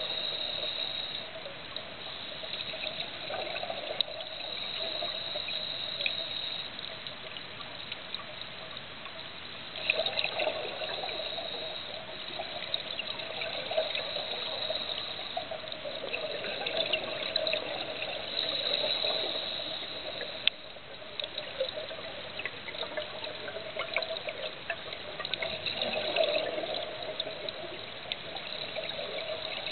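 Muffled underwater sound through a camera housing: a scuba diver's regulator, with gurgling rushes of exhaled bubbles that swell every several seconds.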